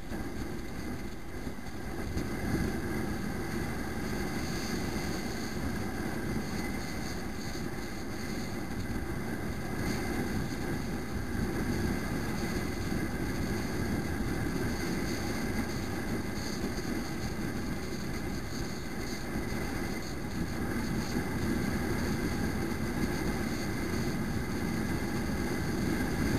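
Motorbike being ridden along a street: a steady drone of its engine and road noise, getting a little louder about two seconds in.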